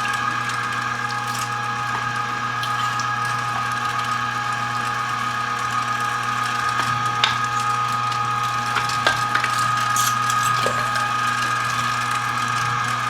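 Cabela's 3/4 HP electric meat grinder running steadily, its motor holding a constant hum while the auger grinds raw venison. A few sharp clicks and ticks come past the middle.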